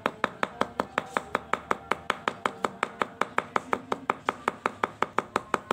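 Wooden ecoprint mallet pounding flower petals through a plastic sheet onto cloth, a steady run of quick knocks at about five strikes a second. The pounding crushes the petals so their pigment is pressed into the fabric.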